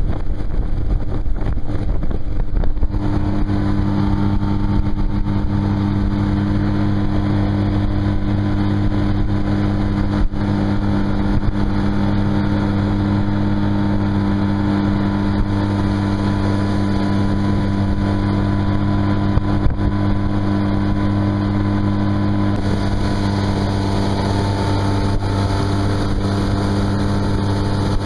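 Tohatsu four-stroke outboard motor driving a small boat under way, its engine tone settling into a steady hum about three seconds in and holding, with hiss from wind and water that grows near the end.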